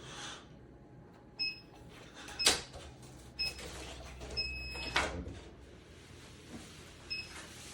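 Short electronic beeps from a device's control panel, one of them held longer about four seconds in, and a quicker run of beeps near the end, with two sharp clicks or knocks between them.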